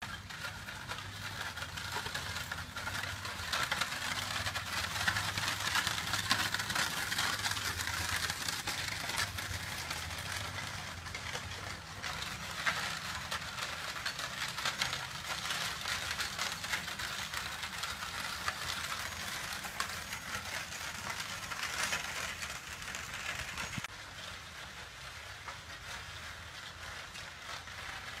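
Horse-drawn carriage rolling over a gravel drive: a steady crunch and rattle from the wooden spoked wheels on the gravel, mixed with the horse's hoof steps, growing fainter near the end.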